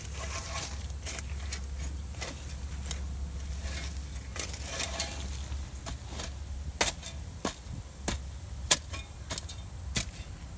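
Metal spade digging and scraping through soil and wood mulch, the blade grating and clinking against stones and grit. The sharp scrapes come about every half second from around the middle on.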